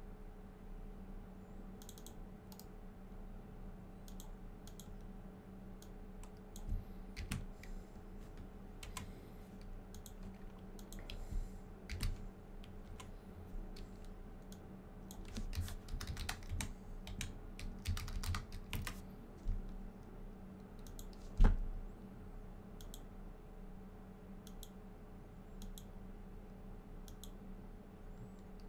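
Typing on a computer keyboard: scattered keystrokes and clicks, coming in quicker runs a little past the middle, with one sharper, louder knock about three-quarters of the way through. A steady low hum runs underneath.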